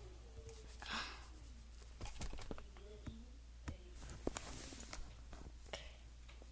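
Computer mouse clicking, scattered sharp clicks, while a faint voice murmurs in the background.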